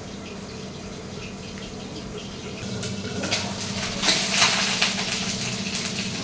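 Fish frying in a pan on a gas stove: a steady sizzle that swells into a loud hiss about three to four seconds in as the lid is lifted off, with a steady low hum underneath.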